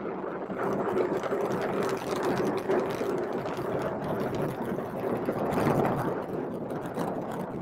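Atlas V rocket's RD-180 engine heard from miles away during ascent: a steady, rough, crackling rumble.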